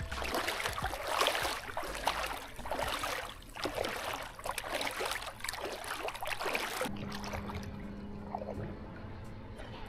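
Shallow sea water lapping and splashing in small surges about once a second. About seven seconds in it stops abruptly, and soft background music with held notes carries on.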